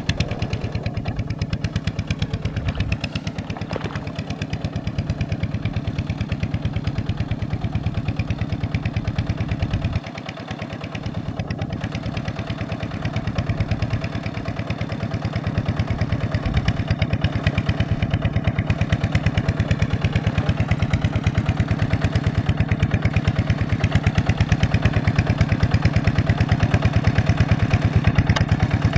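An engine running steadily with even firing pulses. It drops briefly about ten seconds in, then picks up again and grows a little louder.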